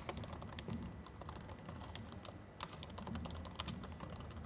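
Faint, fast typing on a laptop keyboard: a run of irregular key clicks with a short pause a little past halfway.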